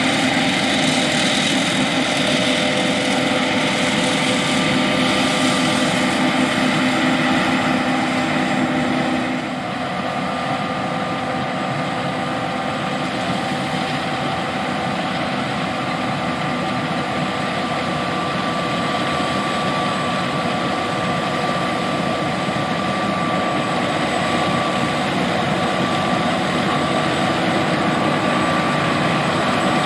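John Deere S780 combine harvester running steadily while harvesting: a loud machinery drone with several steady whining tones. About nine seconds in the sound drops a little and its tones shift, then holds steady again.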